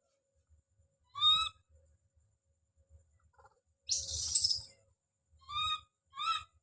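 Baby monkey calling out: a short pitched call about a second in, then a loud, very high-pitched scream lasting under a second, followed by two more short calls near the end.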